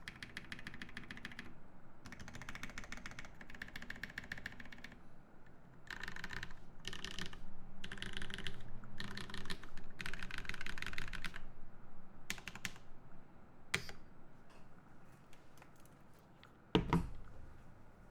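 Typing on a Jubi mechanical keyboard with lubed Naevy switches on an aluminium plate and GMK keycaps. It comes in fast bursts of keystrokes, then thins to a few scattered presses, with one louder, deeper thump near the end.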